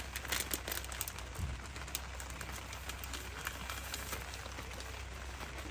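Crackling, crinkling rustle of a foil drip-coffee packet being torn open and the paper drip bag unfolded by hand, thickest in the first couple of seconds, over a steady background hiss.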